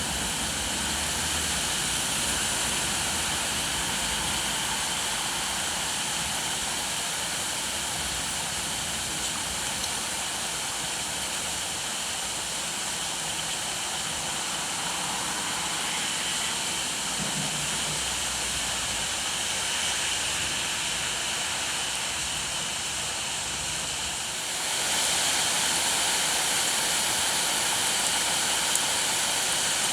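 Steady rain, an even hiss with no thunder, that abruptly gets louder about 25 seconds in.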